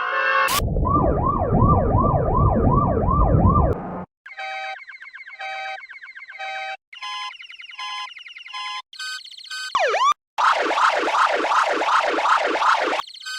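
Electronic siren and car-alarm sound effects in quick succession. First a sweeping whoop repeats about twice a second over a rumble. Then a car-alarm beep pattern repeats, shifted higher in pitch each time, and a fast warbling siren takes over about ten seconds in.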